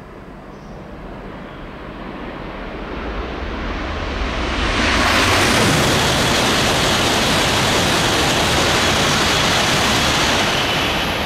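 Coupled E5-series Hayabusa and E6-series Komachi Shinkansen passing through a station at high speed without stopping. The rushing of air and wheels builds over about five seconds, stays loud and steady while the cars go by, then starts to fade near the end.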